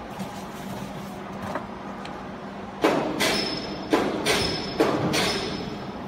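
Sheets of cardboard being shoved into the steel loading chamber of a vertical baler: a quick run of about six scraping thuds starting about halfway through, over a low steady hum.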